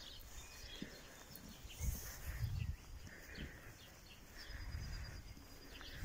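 Small birds chirping and singing in the trees: many short high chirps with a few thin whistled notes. A few low rumbles come through, loudest about two seconds in.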